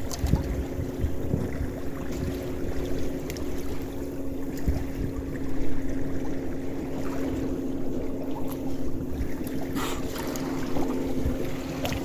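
Wind buffeting the microphone and water rushing past the hull of a small sailboat under way, with a steady low hum underneath.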